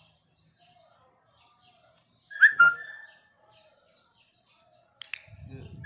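Faint bird chirps in the background. About two and a half seconds in, a short, loud, high squeal glides up and holds briefly. Near the end a click is followed by a rustling.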